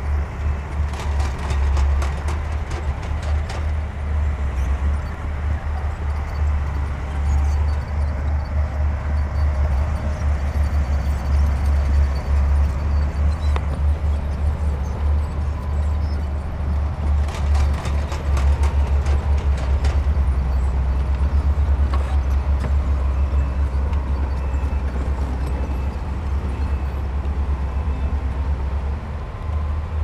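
Bulldozer diesel engine running steadily, a deep pulsing rumble throughout. Bursts of clicking and clatter come about a second in and again just past halfway.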